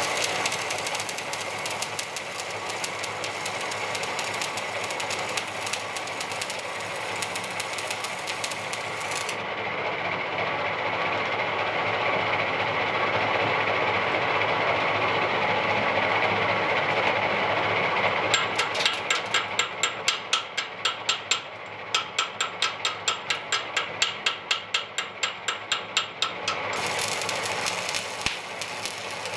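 Metalworking equipment running steadily with a dense crackle. About two-thirds of the way in it turns to a fast, regular pulsing, roughly three beats a second, for several seconds.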